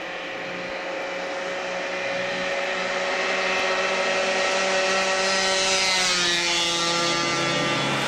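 Two-stroke scooter engine running at high revs and growing steadily louder; about six seconds in, its pitch drops and settles lower.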